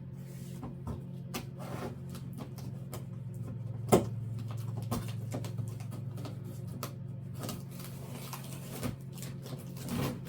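Cardboard box being opened by hand: scattered knocks, scrapes and rustles, with one sharp knock about four seconds in. A steady low hum runs underneath.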